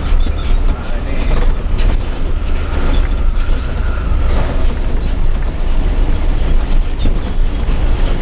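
Cab interior noise of an Isuzu Giga 285 PS diesel tractor truck on the move: a steady low engine and road rumble with frequent light rattles and clicks from the cab.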